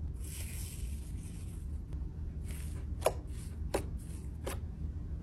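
Fingers pressing into and kneading a fluffy, sugar-coated slime: crackly rustling, then three short pops about two-thirds of a second apart, each falling in pitch, the first the loudest.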